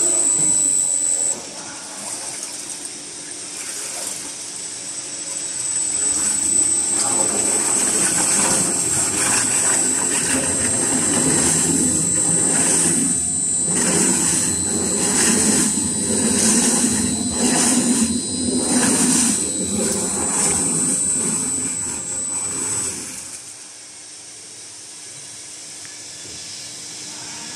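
Open dual shaft mixer running, its agitator and high-speed disperser churning and splashing liquid in the open tank in repeated surges, with a steady high whine. About 23 s in the churning drops off sharply, leaving a quieter hiss.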